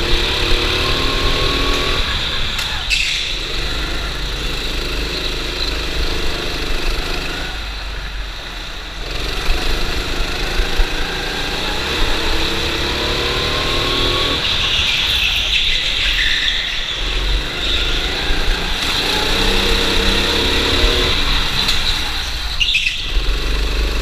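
Go-kart engine heard from on board, revving up on the straights and falling away four times as the throttle is lifted for corners, over a steady low rumble of the kart's vibration.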